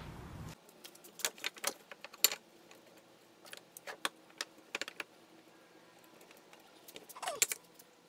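Scattered light clicks and knocks of a pocket-hole jig, trigger bar clamps and pine boards being handled on a wooden workbench, with a quick run of clicks near the end as a clamp is squeezed tight onto the jig.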